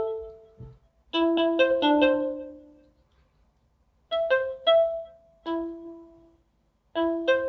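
Artiphon Orba's lead synth voice: short melodic runs of quick notes tapped on its pads, three phrases with brief pauses between them, each note ringing and fading.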